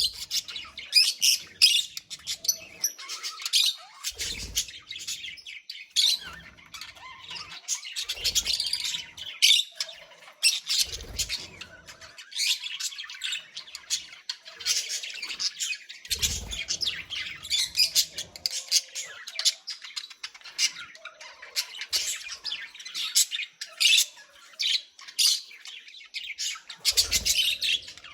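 Budgerigars chattering and warbling continuously: rapid high chirps and squawks with short pauses, and a few soft low thumps in between.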